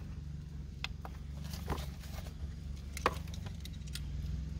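Plastic wiring-harness connectors and the stereo head unit's casing being handled, with a few short, sharp clicks and light rattles scattered through, over a low steady hum.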